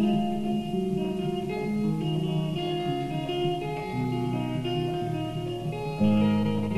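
Instrumental music: electric guitar noodling in held, plucked notes over a bass line, with low bass notes changing about four and six seconds in.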